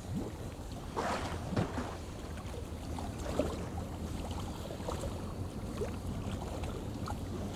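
Surface water splashing and slapping around a California sea lion feeding and rolling at the surface, with a few short, sharp splashes in the first few seconds, over a steady low hum.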